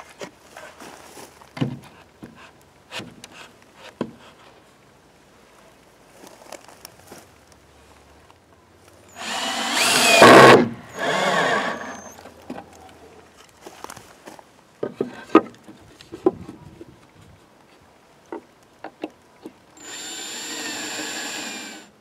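Cordless drill driving screws through a wooden birdhouse into a wooden fence: two whirring bursts about nine and eleven seconds in, the first the louder, with the pitch shifting as each screw goes in. Light knocks and clicks of handling come before them, and a steady hiss near the end.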